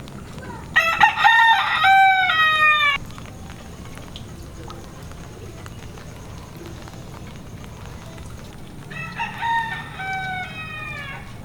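A rooster crowing twice: a loud crow about a second in, lasting about two seconds and falling in pitch at the end, and a fainter crow near the end.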